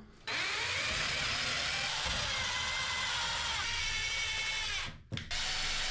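Power drill running as it bores holes: one long run of about four and a half seconds, a short stop, then drilling again near the end.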